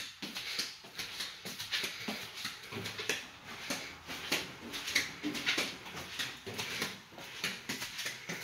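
Footsteps and rustling of people walking down the aisle inside a passenger rail car, a string of irregular light taps and scuffs.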